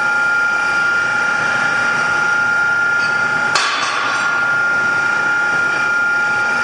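Colton single-arm sigma-blade mixer's motor and gear drive running with a steady whine, and a single sharp knock about halfway through.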